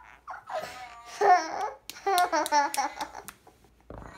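A girl's wordless, high-pitched vocal sounds: a run of short babbling and giggling noises, with a few sharp clicks in between.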